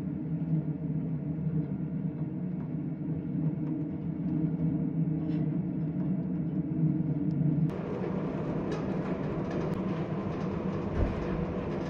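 Steady low hum of a large ferry's engines and machinery heard from inside the ship. About two thirds of the way through it changes abruptly to a rougher, wider rumbling noise, with a low thump near the end.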